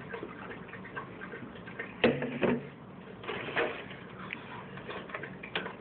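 A man drinking milk straight from a plastic gallon jug and then handling it, with scattered small clicks and knocks. A short vocal sound comes about two seconds in.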